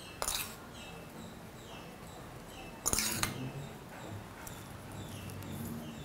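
Metal spoon clinking against a small metal tempering pan twice, with a brief ring, while oil tempering is spooned out of it.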